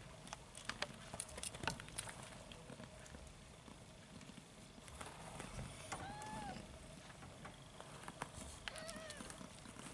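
Young kittens mewing: two short, arched high cries, one about six seconds in and another near nine seconds, over scattered soft clicks and rustles from the litter jostling on cloth bedding.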